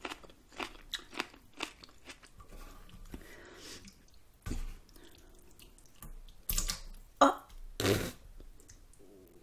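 Close-miked eating of ramen noodle soup: wet chewing with many small mouth clicks and smacks, and a few louder slurps in the second half.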